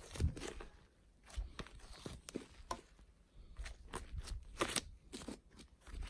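Fluffy slime being stretched, folded and squeezed by hand, giving irregular small clicks and pops.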